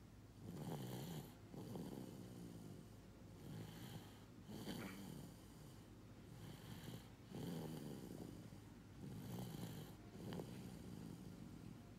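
Snoring: faint, fluttering breaths that rattle low in the throat, repeating every second or two.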